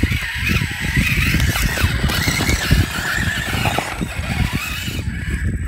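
Scale RC rock crawler's electric motor and geared drivetrain whining as it crawls over rock, the pitch wavering up and down with the throttle, over an uneven low rumble.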